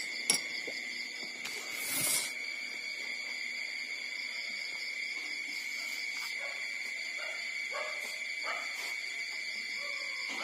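Newborn puppies making faint short squeaks and grunts while nursing, over a steady high-pitched whine. A sharp click comes about a third of a second in and a brief rustle about two seconds in.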